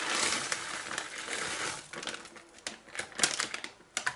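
Flaked almonds poured from a packet into a nonstick frying pan: a continuous light patter for about a second and a half, then crinkling of the packet and a few scattered clicks of flakes landing.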